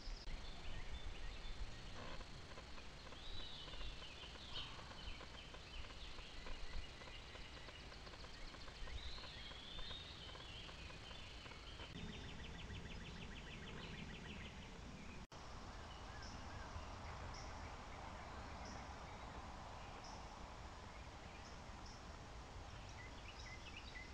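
Faint outdoor ambience with animal calls: high chirps and warbling phrases, then a quick, evenly pulsed trill about twelve seconds in. The sound drops out for an instant about fifteen seconds in, and then a faint steady hiss follows with a short high chirp repeating every second or so.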